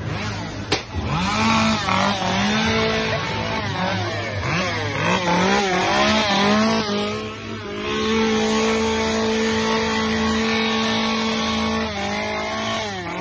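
Gas chainsaw revving again and again, its pitch sweeping up and dropping back several times, then held at a steady high pitch for a few seconds near the end. A sharp click comes about a second in.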